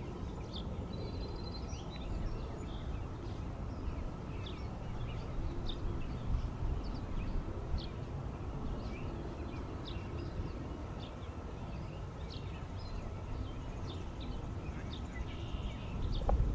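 Small birds chirping often, in short high calls, over a steady low rumble of outdoor background noise.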